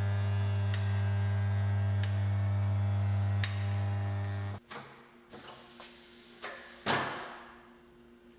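Tyre changer's electric turntable motor running with a steady mains-pitched hum, which stops suddenly after about four and a half seconds. A pneumatic release follows: about two seconds of high air hiss with a sharp clunk near its end.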